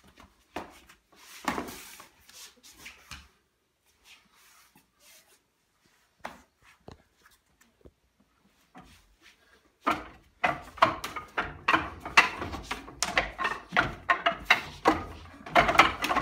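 Wooden training dummy being worked with the hands and forearms: a fast, irregular run of sharp wooden knocks and slaps begins about ten seconds in. Before that there are only a few scattered hand slaps and quiet ticks.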